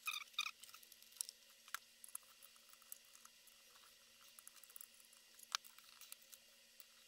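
Screws being taken out of a sheet-metal case and the case being handled: faint scattered clicks and light scrapes, with brief squeaky scraping at the very start and a few sharper metal clicks.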